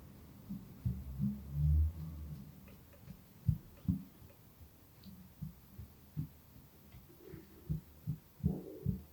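Hands massaging a client's back, giving soft low thumps about twice a second as the strokes press into the body. A short low rumble comes about a second in.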